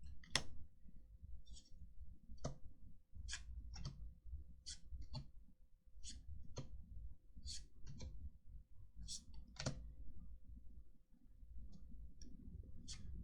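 Trading cards being flicked through and laid down one by one: irregular sharp clicks and snaps, roughly one or two a second, over a low rustle of handling, with a faint steady hum underneath.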